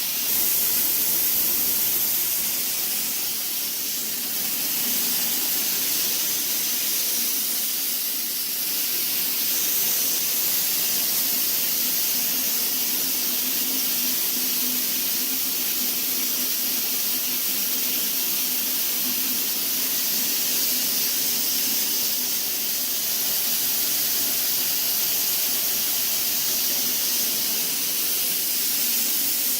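Dry-fog sterilization machine running, spraying fog with a steady high hiss and a faint hum beneath it.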